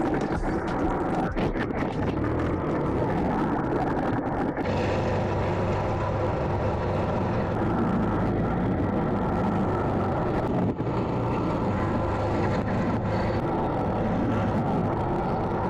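Quad bike (ATV) engine running steadily while riding, with a low engine hum that settles in about four seconds in over constant riding noise.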